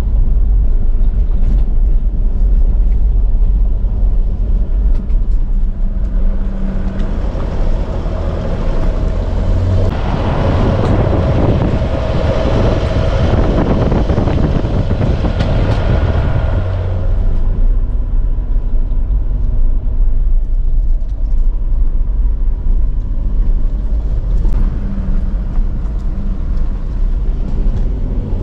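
Four-wheel-drive vehicle driving on a dirt track, heard from inside the cabin: a steady low engine drone under tyre and road noise. The rush of road noise grows louder for about ten seconds through the middle, then settles back.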